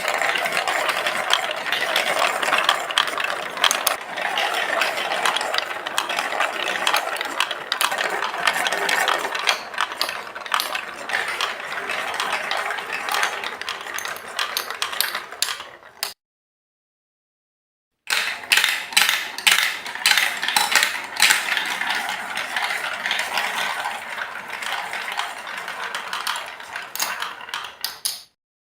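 Marbles rolling and clattering down a Lego Duplo plastic block track, a dense run of rapid clicks and rattling. It cuts off about sixteen seconds in, then starts again two seconds later with a burst of sharp clicks and continues until it stops abruptly near the end.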